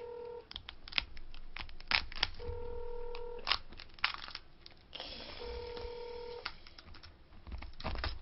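Cooked snow crab being cracked and pulled apart by hand: scattered sharp cracks of shell. Over it runs an electronic tone, about a second long, that repeats roughly every three seconds, much like a telephone ringing tone.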